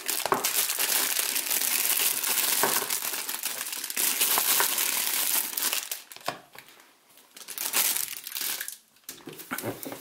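Clear plastic bag crinkling and rustling as rubber anti-vibration feet are pulled out of it, dying down after about six seconds to a few short rustles.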